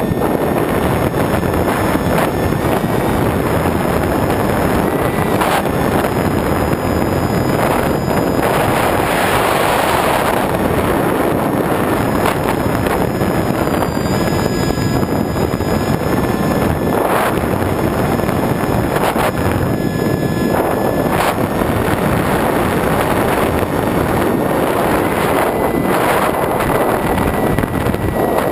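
Wind rushing over the microphone of a camera riding on a flying radio-controlled foam plane, a steady loud rush. Beneath it is a faint high whine from the plane's electric motor and propeller, shifting up and down in pitch a few times as the throttle changes.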